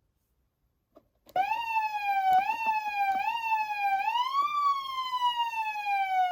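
GALLS GS-101 electronic siren amplifier sounding its siren through a speaker, preceded by a small click. The tone starts, is pushed up in pitch three times in quick jabs, then rises once higher and glides slowly back down before cutting off abruptly.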